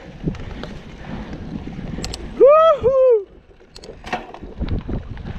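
Mountain bike rolling over a dirt trail: tyre rumble and wind on the microphone, with a few sharp knocks from the bike. About halfway through, a loud two-note whoop from a rider, the first note rising then falling and the second falling.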